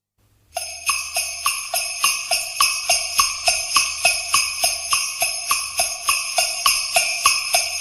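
Electronic keyboard music starting about half a second in with a sleigh-bell rhythm, about three strokes a second, under a short repeating high note figure.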